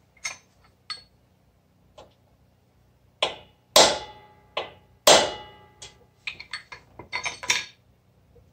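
Hammer striking a brass drift against the rocker arm assembly on a 1974 BMW R90/6 airhead cylinder head, tapping the rocker shaft and bearing into place. Four hard metallic strikes that ring briefly come about three seconds in, followed by a quick run of lighter taps near the end.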